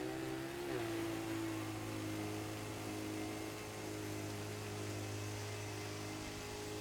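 Prototype radio-controlled single-stage snow blower running while it throws snow, its motor and impeller giving a steady hum with a brief wobble in pitch about a second in.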